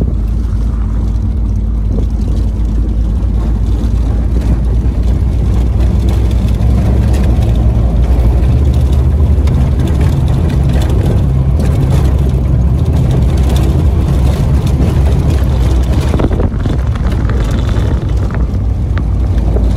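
Supercharged VW G60 four-cylinder engine of an open-top Golf Cabriolet running at low road speed, heard from inside the car as a steady low rumble. Wind buffeting on the microphone mixes in.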